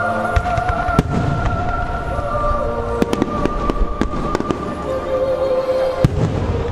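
Fireworks shells bursting with sharp bangs, about six loud reports with crackling between them, the biggest about six seconds in, over music playing through loudspeakers.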